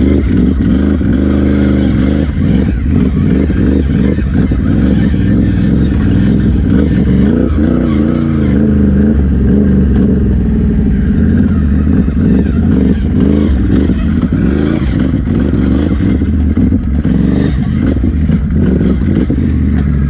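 Can-Am Renegade XMR 1000R ATV's V-twin engine running through an RJWC Mud Edition dual slip-on exhaust under way, the revs rising and falling a few times with the throttle.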